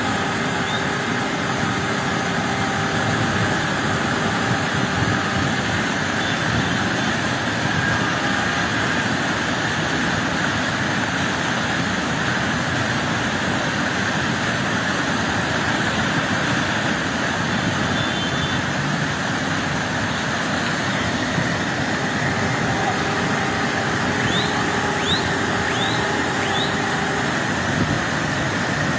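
Rushing water of a small mountain stream cascading over rocks, a steady, even roar. A few short rising chirps come through faintly near the end.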